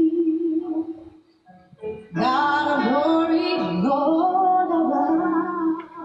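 A song playing: a sung melody over a held note, breaking off about a second in and coming back about two seconds in.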